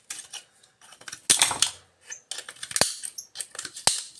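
Small pieces of scrap metal clinking and clattering as they are handled and pried apart by hand, with a few louder metallic clinks that ring briefly.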